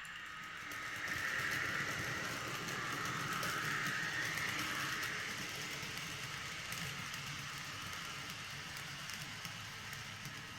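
N-scale model train running on the track: the small electric motor's hum and the wheels rolling on the rails. It grows louder about a second in, then slowly fades as the train moves off.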